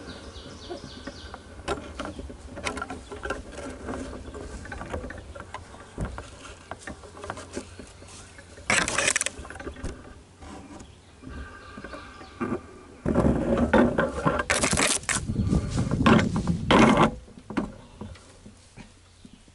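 Feral honey bees buzzing around the pole-mounted camera. Bursts of rubbing and knocking come from the camera moving on its pole: a short one about halfway through, and a longer, louder stretch a few seconds before the end.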